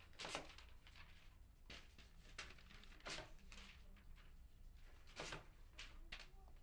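Faint scratchy or rustling strokes, each brief, coming irregularly about every half second to two seconds over a low steady hum.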